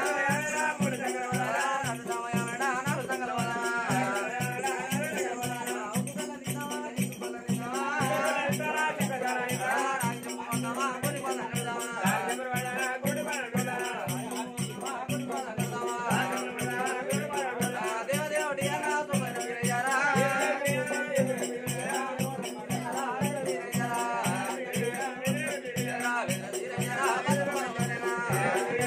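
Telugu folk music for an Oggu Katha performance: a fast, even beat of drum and rattling jingles under a wavering melody line, over a steady held drone.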